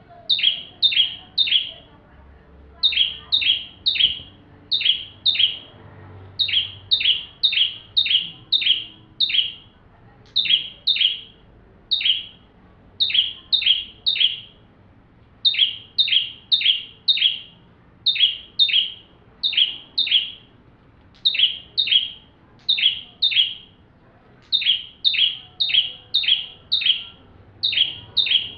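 Ciblek (bar-winged prinia) calling in full voice: sharp notes that each fall quickly in pitch, delivered in rapid runs of three to five with brief pauses between runs, repeated over and over.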